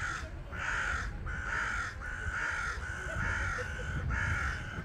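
A crow cawing repeatedly: about six harsh caws in quick succession, each about half a second long.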